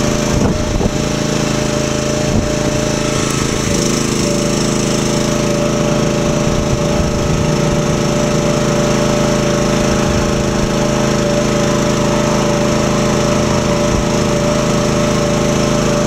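Small gasoline engine of a towable boom lift running steadily, driving the hydraulics as the upper boom is lowered toward its stowed position; its note shifts slightly about four seconds in.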